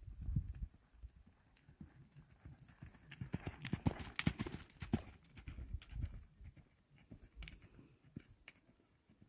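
Horse's hoofbeats on a sand arena at a lope, loudest as the horse passes close by about four seconds in, then fading as it moves away.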